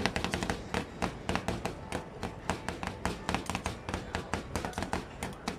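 Metal spatulas chopping and tapping against a cold plate, working fruit into an ice cream base for Thai rolled ice cream: a fast, uneven run of sharp clicks, several a second.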